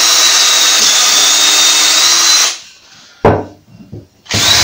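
Cordless drill running at full speed as it bores through a timber batten, a steady high whine that stops about two and a half seconds in. A single sharp knock follows, and the drill starts up again near the end.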